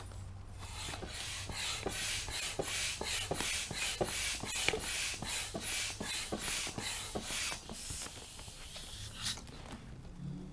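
Hand air pump inflating an inflatable kayak chamber: rapid rhythmic pump strokes, about three a second, each a rush of air, for about seven seconds. It stops, followed by a short steady hiss and a sharp click near the end.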